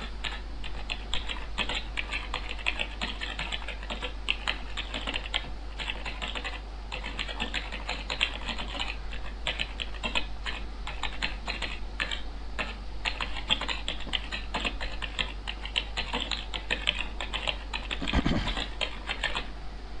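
Keystroke sound effect of a Flash typewriter text animation: rapid, uneven keyboard-like clicks, one for each letter as the text types itself out, over a steady low hum. A dull knock comes near the end.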